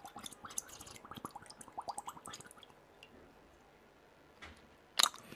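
A husky lapping water from a shallow muddy pool: quick wet laps, about three or four a second, that stop about two and a half seconds in. A short sharp knock follows near the end.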